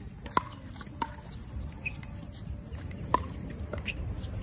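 Pickleball paddles striking a plastic ball: a few sharp pops, the clearest about half a second in and again about three seconds in, with a fainter one between.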